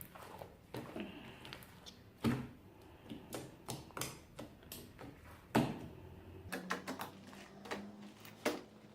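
Slime being kneaded and folded by hand, making scattered soft clicks and pops, with a couple of louder pops about two and five and a half seconds in.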